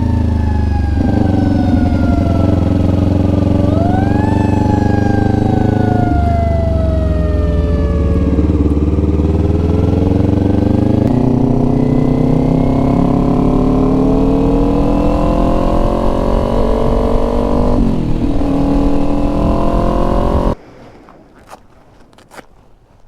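Sport motorcycle engine under way, revving up and shifting through the gears, its pitch climbing and stepping several times. It cuts off abruptly near the end, leaving a few quiet clicks and knocks.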